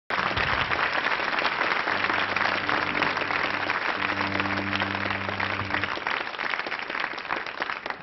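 Audience applauding, a dense steady clatter of many hands that thins out near the end. Underneath, a low steady tone is held twice for about two seconds each.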